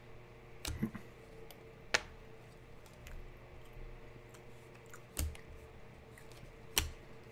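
A handful of short, sharp clicks and taps at uneven intervals, the loudest about two seconds in, over a faint steady electrical hum.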